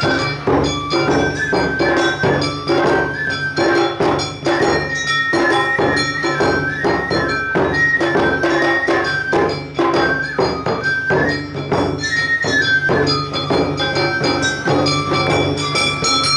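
Live Awa odori festival music: a shinobue bamboo flute playing a stepping melody over a steady beat of taiko drums and the clanging kane hand gong.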